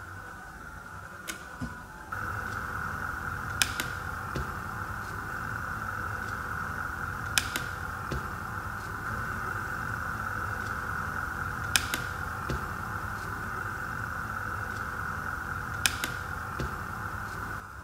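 Sharp clicks of the Leister Hotwind System's function button being pressed, four times about every four seconds with two fainter clicks before them, as the control steps through its setup menu. Under them is a steady hiss that starts suddenly about two seconds in and cuts off near the end.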